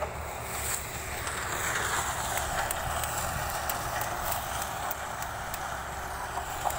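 Sugarcane harvester running as it cuts standing cane, a steady mechanical noise.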